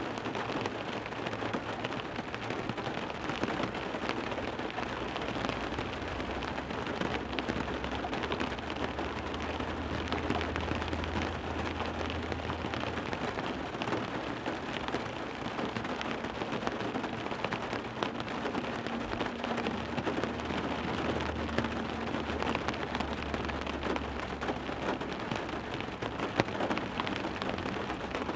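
Heavy rain falling on a car window: a dense, steady patter of individual drop hits. A low rumble comes and goes twice underneath, about a third of the way in and again past two-thirds.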